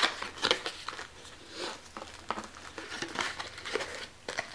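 A small cardboard product box being opened and its contents handled: irregular clicks and scrapes of the cardboard with crinkling of plastic wrap.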